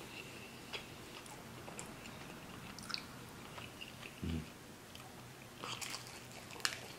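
Close-miked chewing and biting of a meat lover's pizza slice, with wet mouth clicks and smacks scattered through. There is a short low hum about four seconds in, and a cluster of louder smacks near the end.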